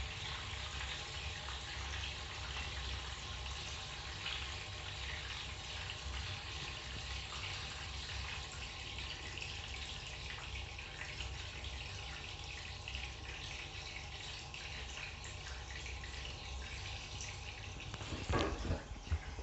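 Water running steadily into a bathtub from a Noritz water heater's automatic bath fill. A few louder, sudden sounds come in near the end.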